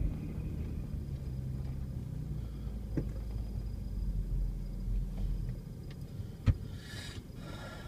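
Vehicle engine running at low speed, heard from inside the cab; its low drone drops away a little over five seconds in. A single sharp knock about six and a half seconds in.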